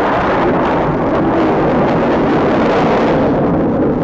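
Loud, steady jet noise from a formation of Northrop F-5E fighters, each with twin turbojets, flying past low.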